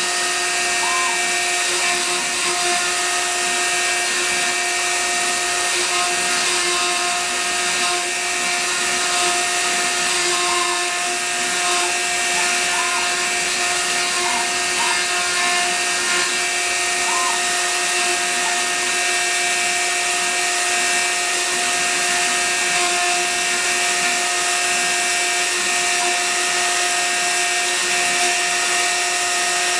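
Hobby CNC router running a carving job: the spindle gives a steady high hiss with a constant hum, and short wavering tones come and go every few seconds.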